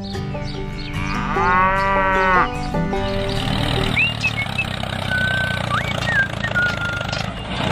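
A cow mooing once, about a second in, lasting over a second, above a steady low drone. From about four seconds in come a few short whistling bird calls.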